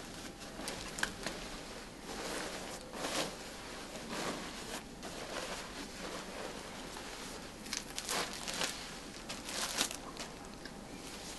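Irregular crinkling and rustling of a white disposable protective coverall being stepped out of and bundled up in gloved hands.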